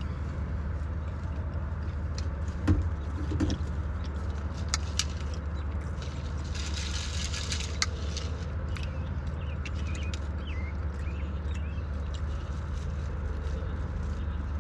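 Eating and handling food over a steady low hum: scattered clicks and smacks, with a brief rustle, like a wrapper being handled, about seven seconds in.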